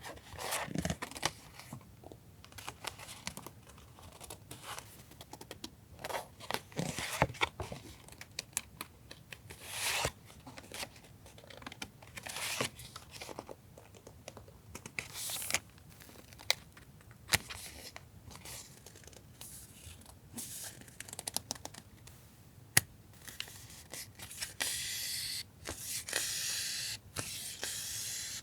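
Paper stationery handled close up: rustling, crinkling and tearing in many short, scratchy strokes. A steadier high hiss, like paper rubbing or peeling, runs from about three-quarters of the way in.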